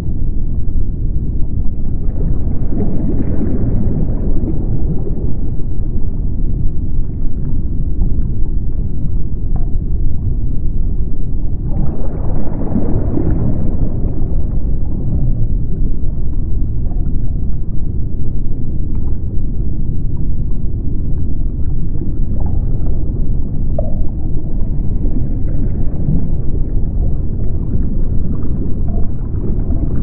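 Deep underwater ocean ambience: a steady low rumble that swells about three seconds in and again around twelve to fourteen seconds, with a few small scattered pops.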